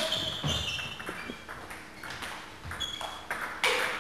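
Table tennis rally: the celluloid ball clicking off bats and table in a quick run of sharp pings, roughly two a second.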